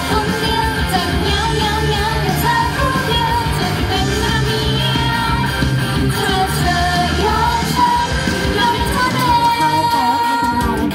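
A woman singing a pop song into a handheld microphone over a loud backing track with a steady beat, through a PA system. Her voice holds one long note near the end.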